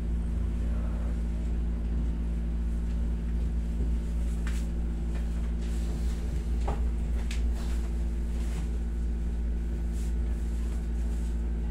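Steady low hum of a window-type air conditioner running, with a few faint clicks and taps from movement in the room.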